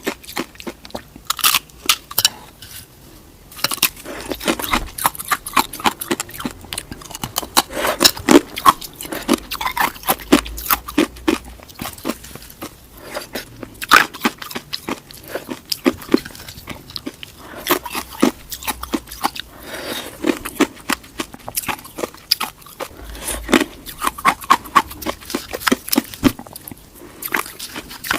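Ice cubes being bitten and chewed, close to the microphone: a dense run of sharp crunches and cracks, several a second, with short pauses between bites.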